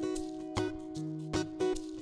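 Background instrumental music with held notes and sharp percussion hits.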